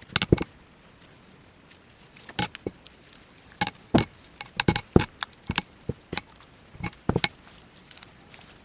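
Glue slime being mixed and handled: irregular short clicks and taps, about a dozen, spaced unevenly.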